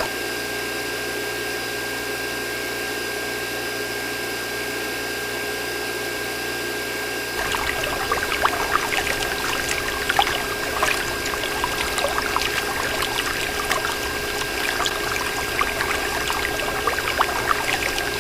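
Water pouring and splashing from a miniature hand pump, over a steady high tone. About seven seconds in it grows fuller, with irregular splashes and clicks.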